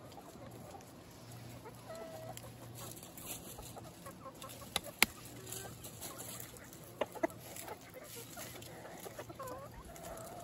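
Free-range chickens clucking quietly, with short calls about two seconds in and near the end. A few sharp clicks come around the middle, the loudest about five seconds in.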